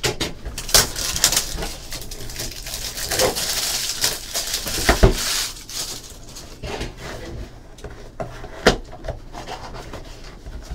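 Handling and unwrapping a sealed trading-card box: a stretch of crinkly rustling from the wrapping and cardboard, with a few sharp clicks and taps.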